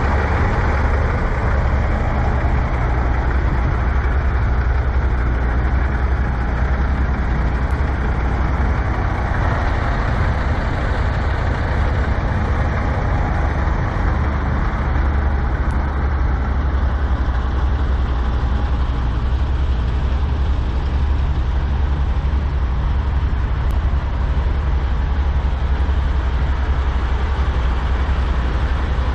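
Semi-truck diesel engines idling steadily, a continuous low hum with no change in speed.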